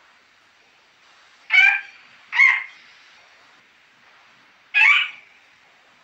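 Pet green parrot squawking: three short, loud, harsh calls, the first two close together and the third about two seconds later.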